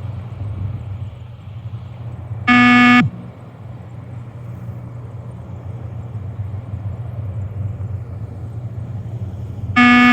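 Beep test shuttle-run beeps: a single loud electronic beep about two and a half seconds in, lasting about half a second, marking the end of a shuttle. Another beep starts just before the end. A steady low hum runs underneath.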